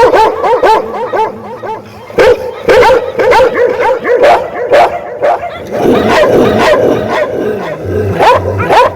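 A dog barking in quick, continuous volleys, several barks a second, with a short pause about two seconds in.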